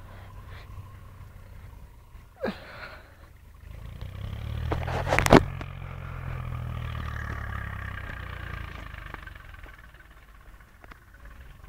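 A motor vehicle's engine rumbling past, building from about four seconds in, at its loudest with a sharp knock a little after five seconds, then fading away. A short, sharp sound is heard a couple of seconds before it.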